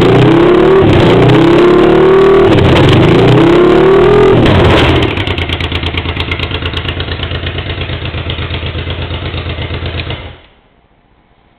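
Honda Africa Twin XRV750's V-twin engine running with no silencer: revved in repeated blips, then dropping to a rhythmic idle about five seconds in, and stopping suddenly about ten seconds in.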